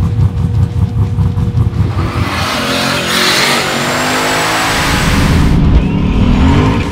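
Turbocharged LS V8 (an LQ9 cast-iron block stroked to 6.8 litres) revving hard, choppy and pulsing at first, then pulling through a long run with rising pitch and a heavy rushing hiss. The pitch climbs once more near the end.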